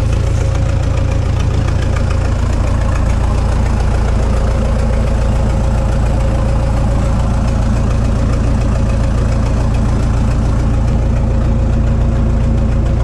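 Backhoe tractor's engine idling steadily, with an even low hum and a constant tone above it.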